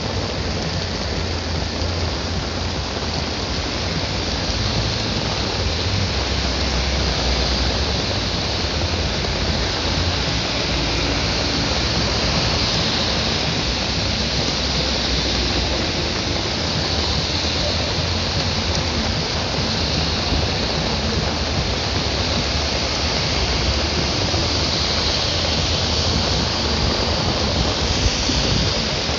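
Steady heavy rain falling, a dense even hiss with a low rumble beneath it.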